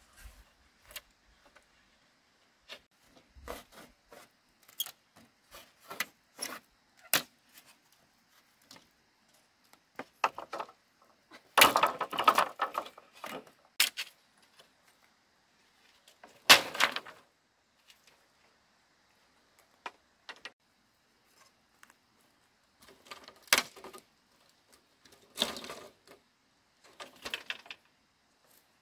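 Irregular knocks and clattering of hard objects. A dense stretch of clatter comes about twelve seconds in, followed by a few louder single knocks and short bursts of clatter later.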